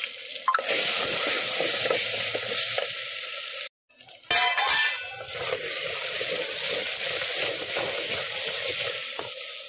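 Pieces of taro root and sliced onion sizzle in hot oil in a pan while a spatula stirs them. The sizzle is steady; it cuts out briefly a little under four seconds in and comes back louder for about a second.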